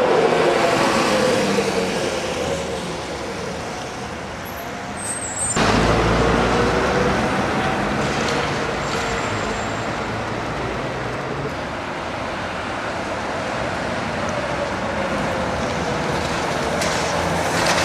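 An articulated city bus passes close by with a falling whine and fades away. After a sudden cut, another articulated bus approaches with a steady low engine rumble that grows louder near the end, over street traffic.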